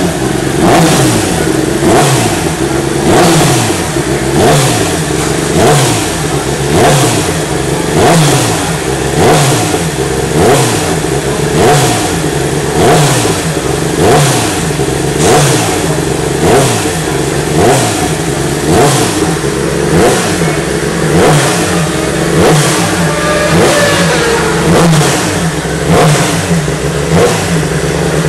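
Suzuki GSX-R1000 World Superbike's inline-four race engine being warmed up on the stand, revved in short, regular blips about once a second, each falling back in pitch before the next.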